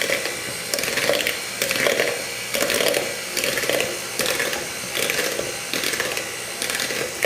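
Electric blender on its slow setting churning butter and sugar, the chunks of butter knocking around so the sound swells and eases a bit under once a second, with scattered clicks.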